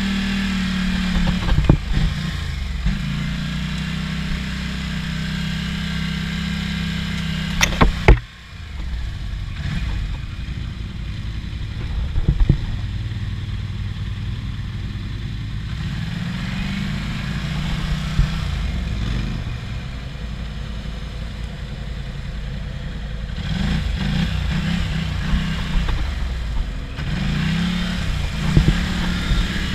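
Snorkelled ATV engine running on a rough trail, its note rising and falling with the throttle, with clatter and knocks from the machine over bumps. A sharp loud knock comes about eight seconds in, after which the engine runs lower and quieter, then revs up again several times toward the end.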